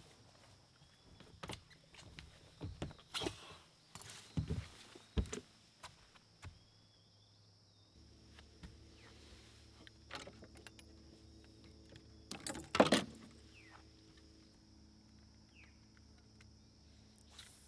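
Quiet scene with a faint steady high hiss. There are scattered rustles and knocks of handling in the first half. A low steady hum comes in about eight seconds in, and a cluster of sharp clicks about thirteen seconds in is the loudest moment.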